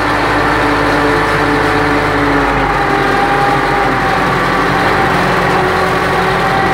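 Tractor engine running steadily under load, heard from inside the cab, while the tractor drives along the field pulling its sprayer.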